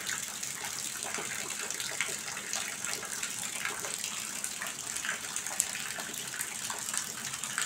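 Heavy rain falling steadily, with water dripping and running off the edge of a roof and pergola onto grass and a tiled veranda: a constant hiss of rain over a dense patter of drops.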